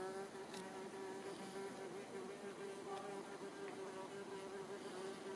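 Faint, steady buzzing hum of flying insects, wavering slightly in pitch.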